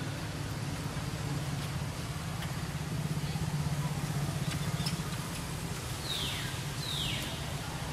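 A steady low engine-like rumble that swells and fades in the middle, with two short high calls falling in pitch about a second apart near the end.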